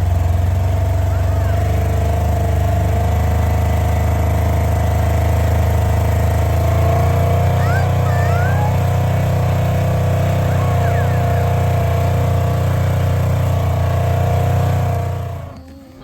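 A vehicle's engine running steadily with a loud low drone that shifts slightly about halfway through, then dies away near the end.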